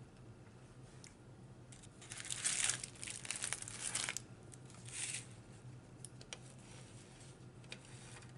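Food wrapper crinkling and rustling as it is handled: one long stretch of about two seconds, then a shorter rustle a second later.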